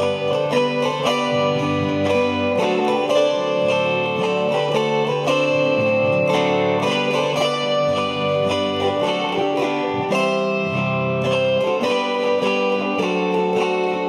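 An ensemble of four chromaharps, autoharp-style zithers, strumming and plucking a hymn arrangement, the chords and melody notes ringing on steadily.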